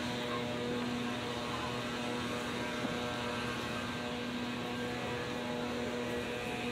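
A steady mechanical hum: a low drone holding one pitch over a general background of outdoor noise.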